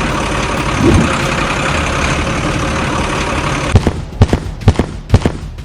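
Vehicle engine running with a steady rumble that stops about three and a half seconds in, followed by about six sharp knocks.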